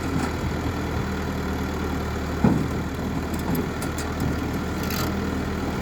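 Water-well drilling rig's engine running steadily with a low hum. A single knock comes about two and a half seconds in, and a short hiss near five seconds.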